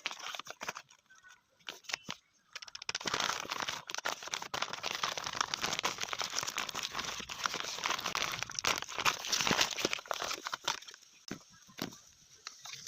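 Plastic blind-bag packaging being torn open and crinkled by hand: a few sharp crackles at first, then about eight seconds of continuous crinkling and rustling that dies down near the end.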